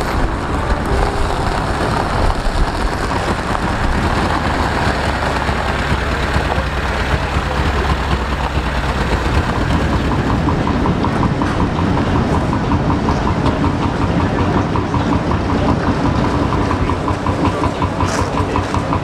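Engine of a Scammell Scarab three-wheeled tractor unit running steadily at low speed as it hauls a loaded flatbed trailer. From about halfway through, a quick, regular ticking joins the rumble.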